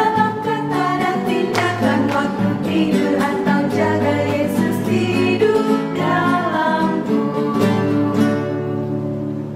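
Women's voices singing an Indonesian children's worship song in unison with instrumental accompaniment. The singing fades out near the end.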